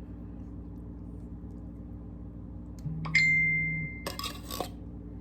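A single metallic ding about three seconds in, ringing and fading over about a second, followed by a brief clatter, over a steady low hum.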